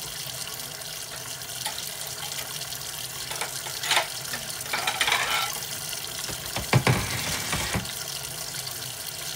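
Kitchen tap running steadily into a sink, with a few knocks and clatters in the middle; the loudest are two knocks about two-thirds of the way through.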